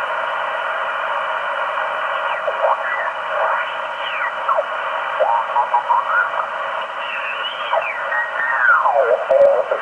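Shortwave receiver hiss from a Yaesu HF transceiver's speaker on the 15-metre band. Garbled signals slide up and down in pitch as the main tuning knob is turned across them.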